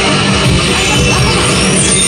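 Heavy rock soundtrack with electric guitar from a pachislot machine's speakers.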